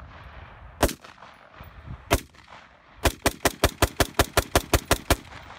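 Colt 6920 AR-15 rifle firing 5.56 mm rounds outdoors: two single shots about a second and a half apart, then a fast string of about a dozen shots at roughly six a second.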